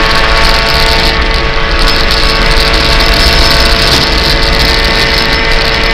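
Rally car's engine heard from inside the cabin, running flat out at steady high revs with its note holding level, over loud tyre and road noise from the dirt road.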